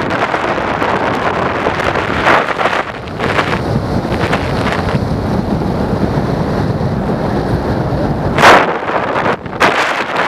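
Wind buffeting the camera's microphone in the airflow of a paraglider in flight: a steady rushing noise with louder gusts about two seconds in and again near the end.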